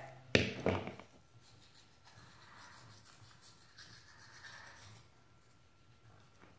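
A short knock about a third of a second in, then the faint, soft rasping of a manual toothbrush scrubbing a toddler's teeth.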